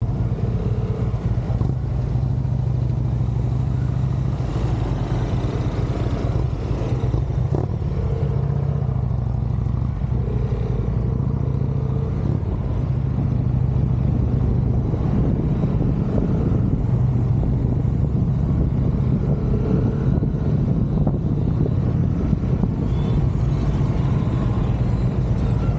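Touring motorcycle engine running steadily at low cruising speed, heard from on the bike, a continuous low hum that never drops away.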